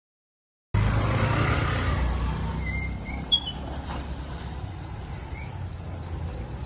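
Roadside outdoor ambience cutting in abruptly under a second in: a low traffic rumble, loudest at first and easing off, with a small bird chirping repeatedly in quick short notes and one sharp click a little after three seconds.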